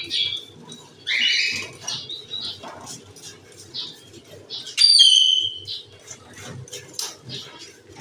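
Caged pet birds chirping and flapping their wings, with one loud held call lasting about a second near the middle, as a trigger spray bottle spritzes mist into the cage.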